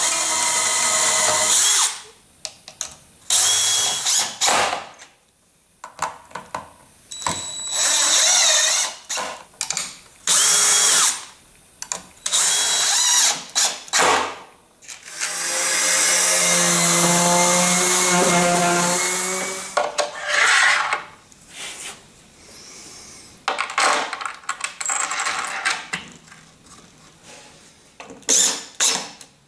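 DeWalt cordless drill with a self-centering bit, drilling pilot holes through the holes of an aluminium track into plywood. It runs in about ten short bursts of a second or two, with one longer run of about four seconds near the middle.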